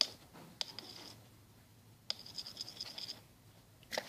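A utensil scraping and tapping in a container of runny slime mixture: two short stretches of scratchy scraping, with a few sharp taps.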